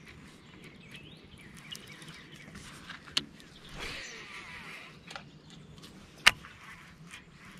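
Faint outdoor quiet with a few sharp clicks from a baitcasting rod and reel being handled; the loudest click comes about six seconds in.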